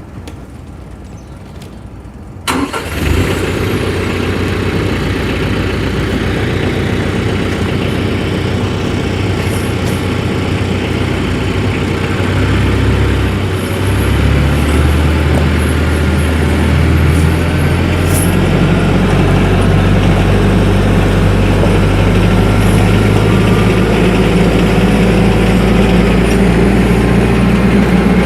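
TYM 474 compact tractor's diesel engine starting up about two and a half seconds in, then running steadily; its engine speed rises past the halfway point.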